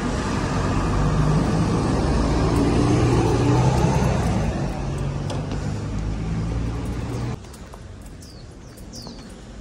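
Loud, steady low rumble of road traffic and vehicle engines that cuts off abruptly about seven seconds in. After that a quieter outdoor background with a few short, high bird chirps.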